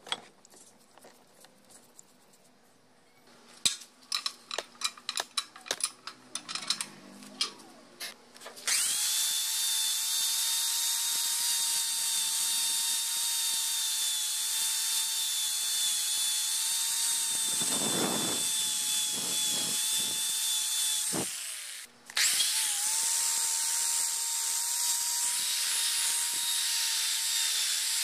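A run of sharp taps and clicks, then a handheld electric power tool starts about nine seconds in and runs steadily with a high motor whine and a hiss. It stops for about a second near the end and starts up again, running on.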